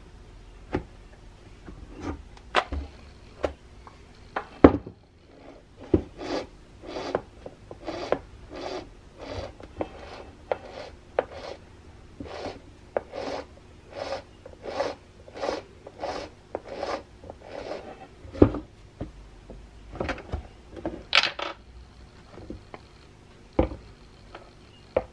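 Craftsman electric chainsaw's drive gearing turned by hand through fresh grease, giving a run of even rasping strokes, about two a second, as the plastic housing rubs and creaks. Scattered knocks and a sharp plastic clack come near the end as the housing is handled and opened.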